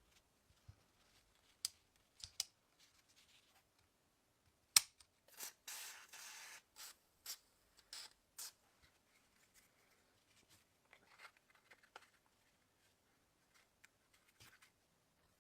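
Small sharp clicks from handling small hard parts and tools, the loudest about five seconds in, followed by about a second and a half of scraping, then a few more clicks.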